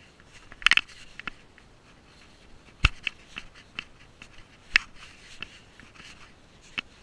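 A cat's paws and claws stepping and scratching on the plastic wrap of hay bales, heard close up from a camera worn by the cat. There are irregular crinkles and scrapes with a few sharp clicks, the loudest a little under a second in and near 3 and 5 seconds.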